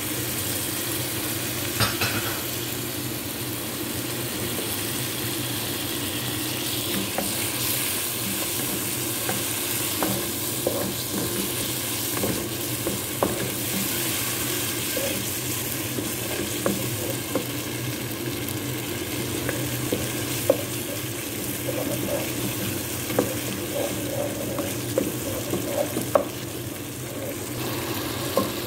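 A wooden spatula stirring a thick spiced masala with yogurt in a nonstick pan, the sauce sizzling with frequent short knocks and scrapes of the spatula against the pan. A steady hum runs underneath.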